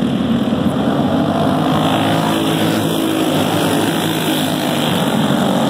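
A pack of dirt-oval racing karts' small engines running together at a steady, moderate pace, the sound swelling as one kart passes close by a few seconds in.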